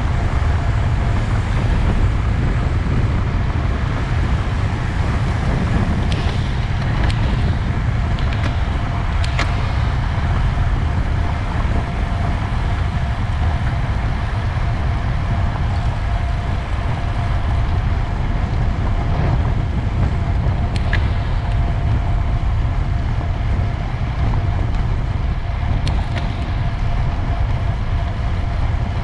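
Wind buffeting the microphone with a steady road and tyre rumble, as from a camera on a bicycle riding at racing speed. A faint steady whine runs underneath.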